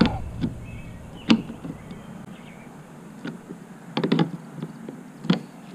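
Small hand pliers tightening a nut on a T-bolt in a kayak's gear track: a handful of separate sharp clicks as the jaws grip and turn the nut, which is only being snugged up firm.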